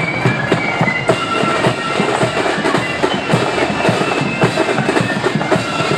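Marching flute band playing: a melody on flutes carried over side drums and a bass drum beat.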